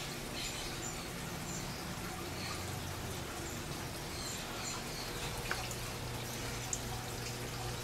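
Steady trickle and splash of water running through aquarium tank filtration, over a low steady hum. Two small ticks in the second half.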